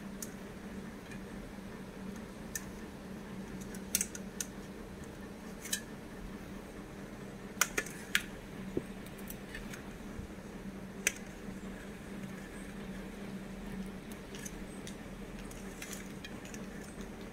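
Kitchen knife clicking and scraping against a stainless steel plate while ripe papaya is sliced: scattered sharp clicks, most of them in the middle of the stretch, over a steady low hum.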